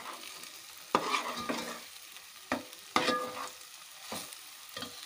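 Perforated metal spoon stirring and scraping coconut masala and onion paste frying in oil in an aluminium pot, with a faint sizzle underneath. The spoon knocks against the pot about five times, some knocks ringing briefly.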